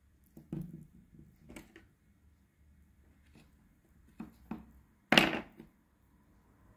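A few light knocks and taps, with one much louder sharp knock about five seconds in that dies away quickly.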